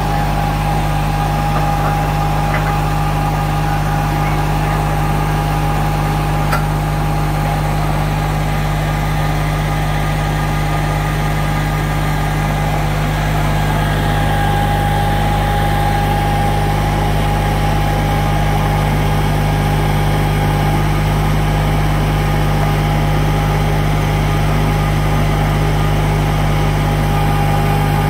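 Kubota compact tractor's diesel engine running steadily at constant speed, with a steady whine above it.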